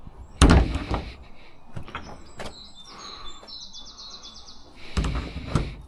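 Plastic clattering and knocking in a wheelie bin as it is rummaged, loudest about half a second in and again near the end. In between, a bird gives a quick run of high chirps.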